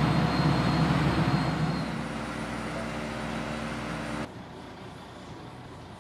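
Crawler crane's engine running, easing to a steadier, lower, even drone about two seconds in. The sound drops away suddenly about four seconds in, leaving only faint outdoor background.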